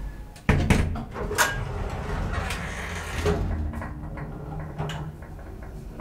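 Elevator's automatic sliding doors closing: a sudden loud clunk about half a second in, then a few sharper clicks and knocks over a low steady hum in the car.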